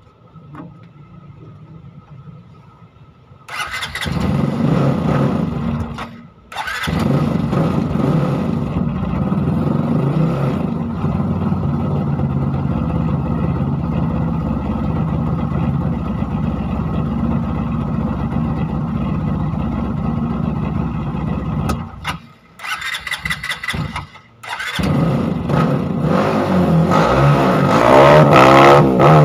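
Bored-up Honda CRF150L single-cylinder four-stroke engine with a newly fitted larger exhaust. It is started about three and a half seconds in and runs steadily, cutting out briefly a few times before catching again. Its revs rise near the end.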